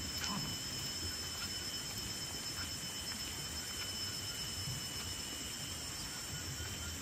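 Insects droning steadily in tropical grassland after rain, a high, unbroken buzz made of several steady tones.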